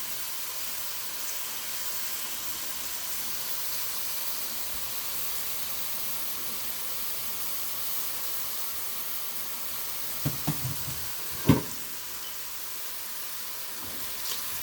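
Chicken with garlic and ginger sizzling in a hot skillet, a steady hiss. About ten seconds in come a few light knocks, then one sharp clack.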